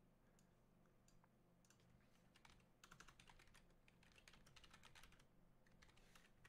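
Faint typing on a computer keyboard: runs of quick light clicks starting about a second and a half in, over a low steady electrical hum.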